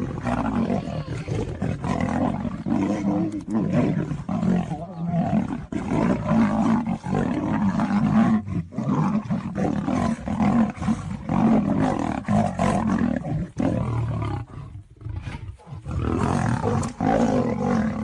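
A lion and a tiger fighting, giving almost unbroken roars and growls with a few brief pauses.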